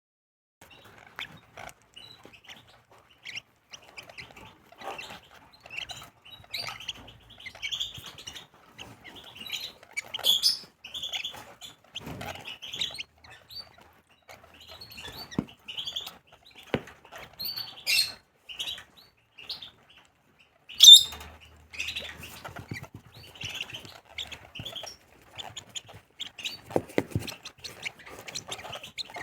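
A group of lovebirds chirping constantly in short, high, overlapping calls as they wait, hungry, for food. A few louder, sharper calls stand out, the loudest about twenty-one seconds in.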